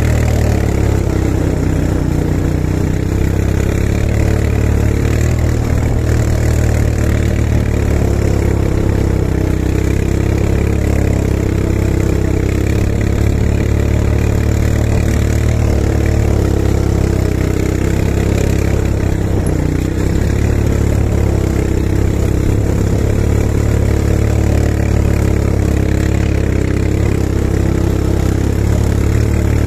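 Quad bike (ATV) engine running at a steady pitch, close to the microphone.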